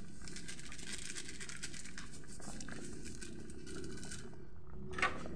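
Pot of sinigang broth simmering on a gas burner: a steady soft bubbling hiss with faint irregular ticks. A small seasoning packet crinkles near the start, and there is a light knock near the end.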